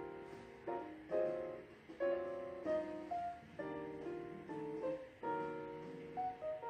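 Background instrumental music: notes and chords struck one after another at an unhurried pace, each ringing briefly.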